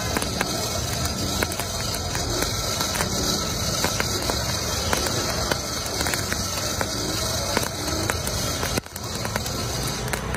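Hand-cranked blower whirring as it fans a bed of burning charcoal, with the embers crackling and many small clicks throughout. The sound drops out briefly about nine seconds in.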